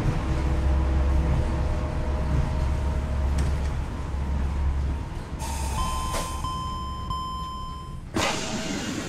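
Monorail train running with a low rumble and a steady motor whine that drops away about five seconds in as it comes to a stop. A steady electronic door chime sounds for about two seconds, and then the doors slide open with a rush of noise near the end.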